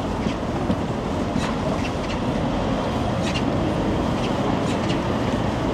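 Steady low rumble of vehicles running, with faint scattered light ticks over it.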